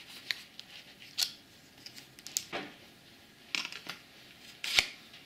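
Sharp clicks and light knocks of tools being handled on a workbench as an adhesive cartridge is fitted into a caulking gun, about half a dozen separate clicks with the loudest near the end.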